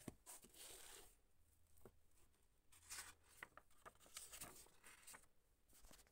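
Faint rustling of paper as the pages of an old book are turned by hand, in several short swishes.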